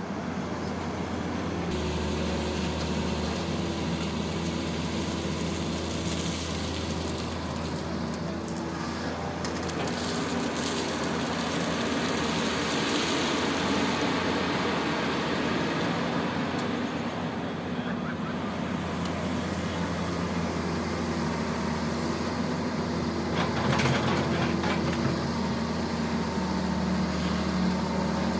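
Heavy diesel engines of an excavator and dump trucks running steadily with a low, even hum. A brief noisy burst comes near the end.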